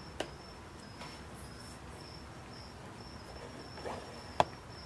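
Two sharp plastic clicks, a small one just after the start and a louder one near the end, as the 3D-printed FPV camera mount is handled and snapped into its angle notches. Under them a high, evenly pulsed chirping like an insect's goes on steadily.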